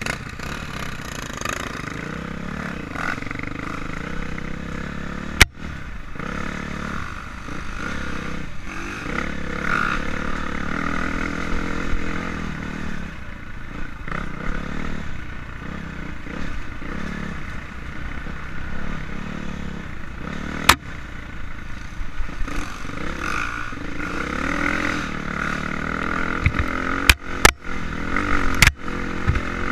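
KTM 400 MXC single-cylinder four-stroke dirt bike engine running under load on a trail ride, its pitch rising and falling as the throttle is opened and closed, over the clatter of the bike on rough ground. Several sharp knocks cut through: one about five seconds in, one about twenty seconds in, and three close together near the end.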